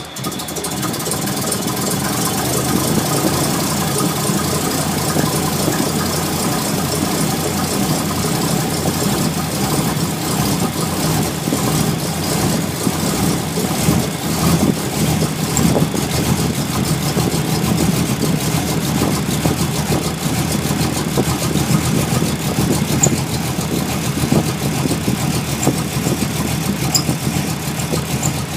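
Ford SN95 Mustang engine running at a rough, uneven idle, still rough after the distributor and timing were reset.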